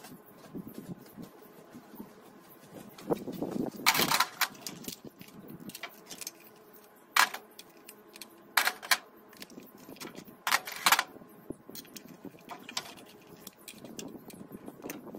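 Hands working a plastic fuse and relay box loose from an engine-bay wiring harness, with hand tools beside it. There are several short, sharp rattling clatters, the loudest about four, seven, nine and eleven seconds in.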